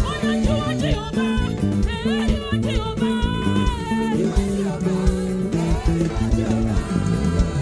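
Live church praise band playing an upbeat groove, with bass guitar, guitar and drum kit, and voices singing over it.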